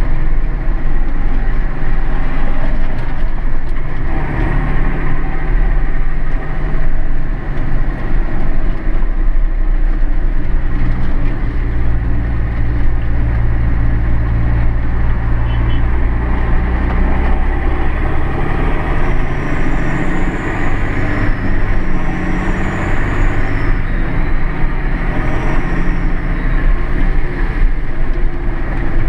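Massey Ferguson 6499 tractor's six-cylinder diesel engine running steadily on the move, heard from inside the cab with cab and road noise. Its low engine note shifts a few times, most clearly between about 11 and 18 seconds in.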